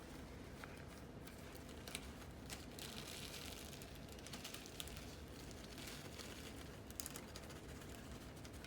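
Faint crinkling of a plastic sandwich bag being handled, with scattered light clicks.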